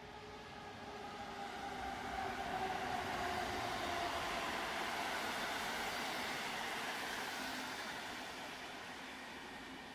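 PKP Intercity electric locomotive and its passenger coaches rolling slowly in along the station platform. Its motors give a faint whine that sinks a little in pitch over the first few seconds, and the rumble of the train swells to its loudest a couple of seconds in, then eases as the coaches draw up.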